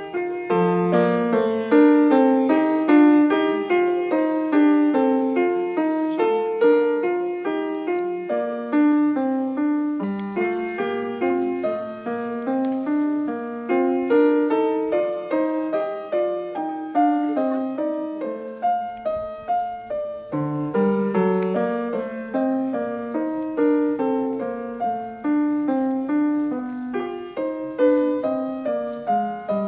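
Piano music: a flowing melody of quick notes over low bass notes.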